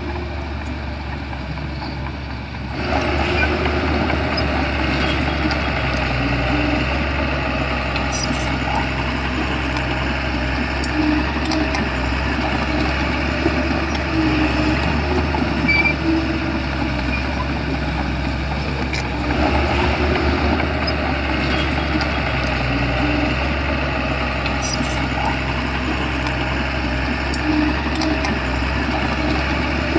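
Shantui crawler bulldozer's diesel engine running steadily, growing louder about three seconds in as it works.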